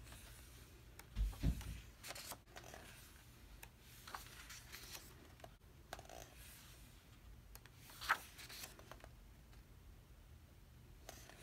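Pages of an album photobook being turned by hand: faint paper swishes and rustles now and then, with two soft low thumps of the book being handled about a second in and a sharper page flip about eight seconds in.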